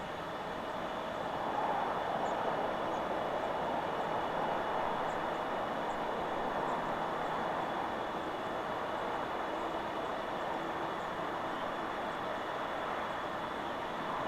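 Wind blowing through forest trees: a steady rushing that swells about two seconds in and holds. A few faint high bird chirps sound over it.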